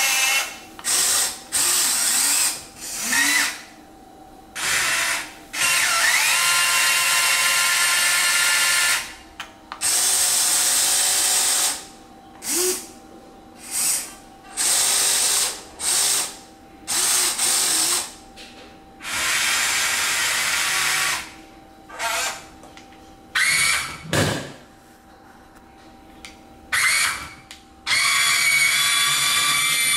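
HUINA 1580 full-metal RC excavator's electric motors whirring in a string of stop-start bursts, from a fraction of a second to about three seconds long, some starting with a short rising whine, as the boom and arm move.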